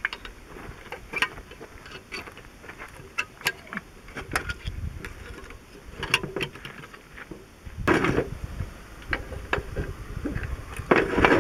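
Scattered light metallic clicks and scrapes as a screwdriver works the return springs off a tractor's disc-brake actuator assembly. There are a few louder clinks of the steel halves and parts being handled near the end.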